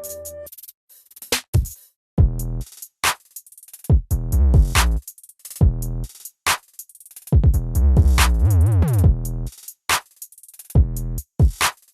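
Electronic music: a drum-machine beat of sharp, choppy hits with a deep bass that slides up and down in pitch twice.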